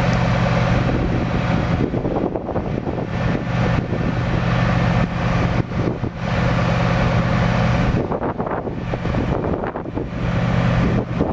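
Wind buffeting the microphone over a steady low engine hum, which fades out for a second or so about eight seconds in.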